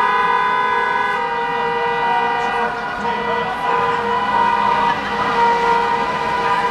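Several car horns held down at once in a long, continuous celebratory blare, their steady tones overlapping.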